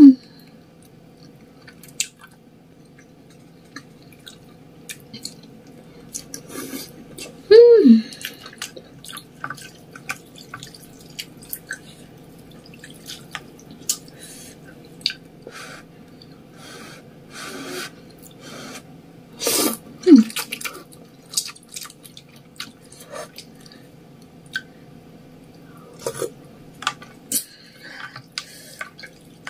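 Close-up eating sounds: wet chewing and mouth smacks on a fried battered eggplant fritter and spicy ramen noodles, with many small clicks. A few short falling hums come near the start, about eight seconds in and about twenty seconds in.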